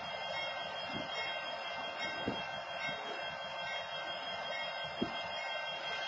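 Steady noise from a stopped freight train standing on the track, with two short sharp knocks, one a little over two seconds in and a louder one about five seconds in.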